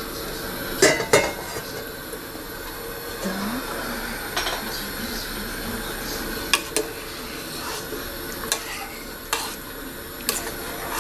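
Stainless steel soup pot and a metal spoon clinking on a gas stove: a scattering of sharp metal clinks, two close together about a second in, over a steady hiss.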